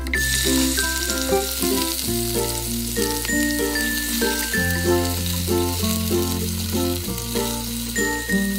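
Raw chicken pieces going into hot oil and sizzling as they fry; the sizzle starts suddenly as the chicken goes in. Background music with a bass line and melody plays under it.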